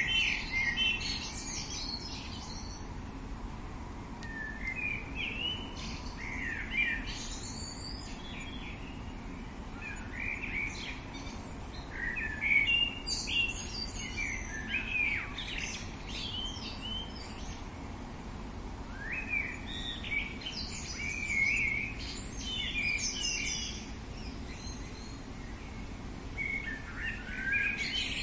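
Songbirds singing short, quick phrases of chirping, warbling notes, one phrase every few seconds with a denser run in the middle, over a steady low background hiss.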